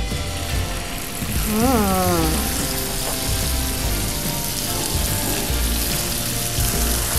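Chicken breast pieces sizzling in a hot pan with a little oil, just laid in to pan-fry; the sizzle grows louder about a second in and then holds steady.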